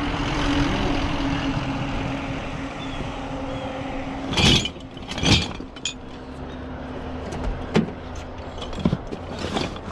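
A road vehicle's engine and tyre noise swells and fades over the first four seconds. Then come about five sharp clanks and knocks, scrap being handled and set down.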